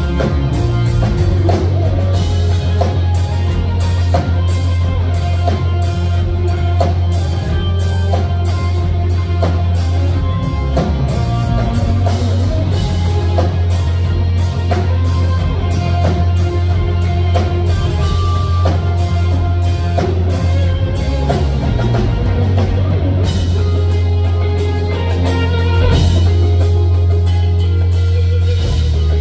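Live instrumental rock played loud: a lead electric guitar over drum kit and bass, with cymbals dropping out briefly about three-quarters of the way through.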